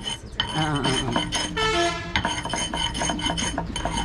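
A cloth-wrapped object rubbed back and forth on a flat stone slab by hand: a continuous rasping grind with squeaky tones that rise and fall with the strokes.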